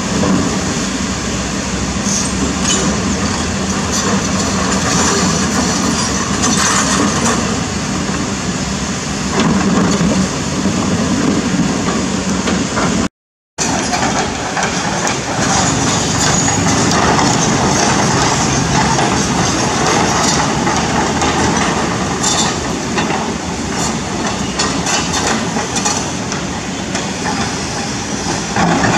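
Kobelco SK200 hydraulic excavator's diesel engine running as it works in a river, over the rush of shallow fast water, with a few sharp clacks of stones knocked by the bucket. The sound drops out completely for a moment about halfway through.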